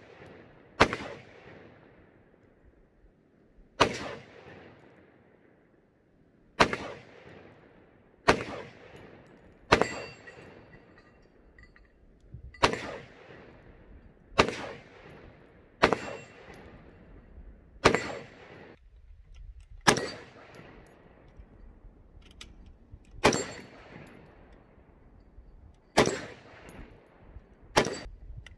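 An AR-15 rifle fired in slow semi-automatic shots, about a dozen at irregular gaps of one and a half to three seconds, each crack followed by a fading echo.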